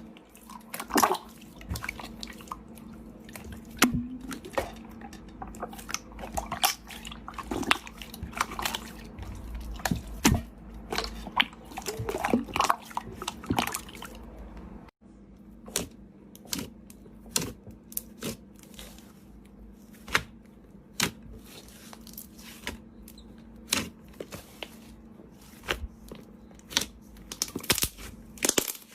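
Slime being squished and worked, giving many irregular sharp wet clicks and pops over a faint low steady hum. The sound breaks off abruptly about halfway and carries on with a similar, slightly sparser run of clicks.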